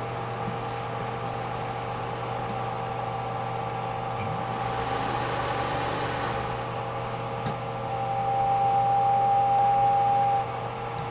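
Vintage computer running through its startup: a steady fan hum and drive whir with several constant tones. About eight seconds in, a steady whine grows louder, then cuts off suddenly.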